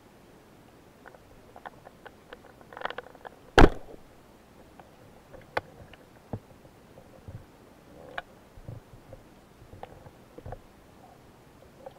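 Underwater sound of a shallow rocky seabed, picked up through a camera housing: scattered short clicks and knocks, with one much louder sharp knock about three and a half seconds in.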